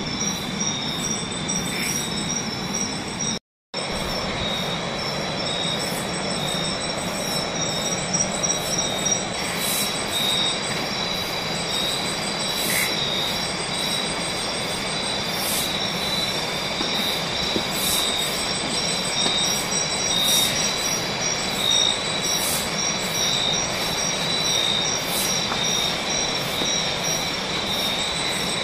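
Night chorus of tropical forest insects, many trilling at once in steady high-pitched tones, some in fast pulsing trains, over an even background hiss. The sound drops out to silence for a moment about three and a half seconds in.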